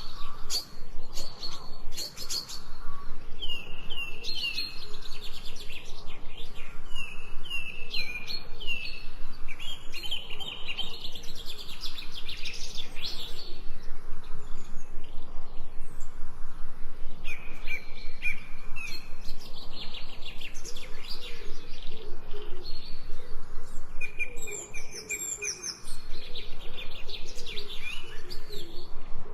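Birds chirping and calling in a chorus of rapid, high, repeated chirps, many of them short downward sweeps, with a brief lull near the end.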